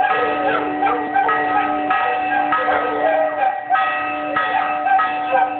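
Church bells ringing: several bells of different pitches struck again and again, each stroke ringing on into the next so the tones overlap.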